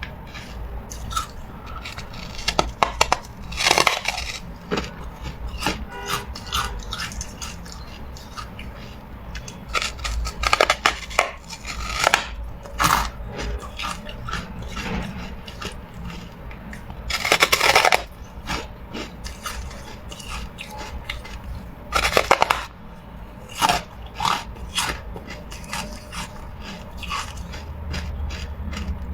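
Carbonated ice being bitten and crunched between the teeth, close to the microphone. Loud bouts of sharp cracking come every few seconds, with smaller clicks and crackles between.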